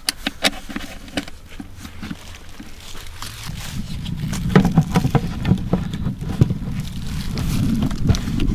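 A plastic sap bucket being handled against a maple trunk on its metal spile: scattered light clicks and knocks. From about three and a half seconds in, a louder low rumble of handling noise is added, with many small ticks.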